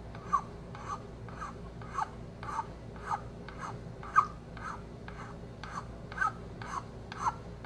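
A small flat metal file rasping in short strokes across the briar shank of a Dunhill 305 tobacco pipe, about two strokes a second, each with a brief squeak that falls slightly in pitch: the file is taking down a ridge so the shank blends flush with the stem.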